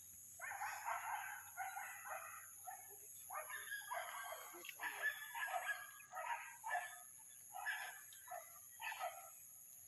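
Domestic chickens calling, with a rooster crowing: a long call followed by a series of shorter calls that grow sparser toward the end.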